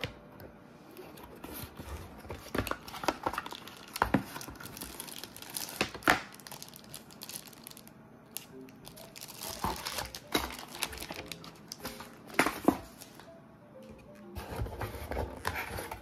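Packaging being handled: a clear plastic zip bag crinkling and cardboard rustling, with irregular sharp crackles that peak a few times. Soft background music with a melody comes in near the end.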